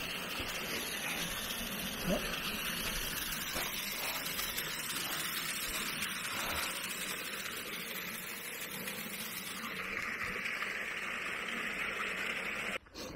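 Small mountain waterfall and stream cascading over limestone rock, a steady rushing splash of water that cuts off suddenly near the end.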